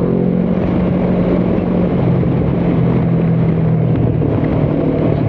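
Honda CB500X's parallel-twin engine running at a steady engine speed while riding, under steady wind rush.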